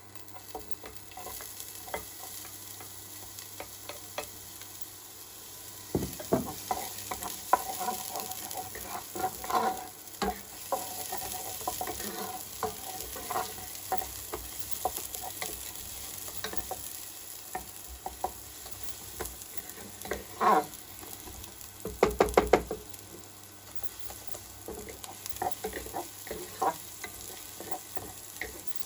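Chopped garlic and onions sizzling in olive oil in a frying pan, stirred with a utensil that scrapes and knocks against the pan. A quick run of taps comes about 22 seconds in, with single louder knocks now and then.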